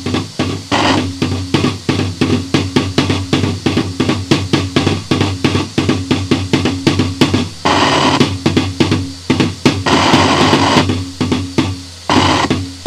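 Noisecore recording: rapid, evenly repeated percussive hits, about five a second, over a steady low drone. Walls of harsh distorted static break in about eight, ten and twelve seconds in.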